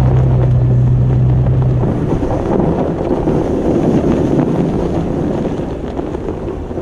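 Toyota FJ Cruiser rolling slowly over a snowy trail, heard from a camera mounted low beside the front tyre: a loud rumble of tyres on snow and wind buffeting the microphone. A steady low engine hum drops away about two seconds in.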